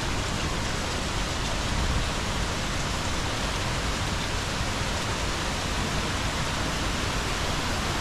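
Steady rush of falling water from a waterfall, an even hiss-like noise with no breaks.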